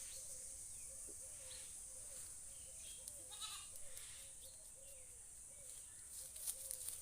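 A goat bleats once, briefly, about halfway through, faint over a steady high hiss and a run of small repeated chirps.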